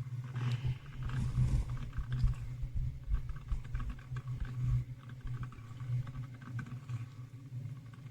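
Salter one-cup filter coffee maker brewing: irregular gurgling and sputtering as the heated water bubbles up through the machine, over a steady low hum.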